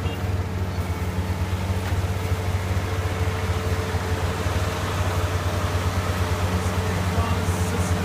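An engine running steadily at an even speed: a fast, regular low pulse with a constant hum above it.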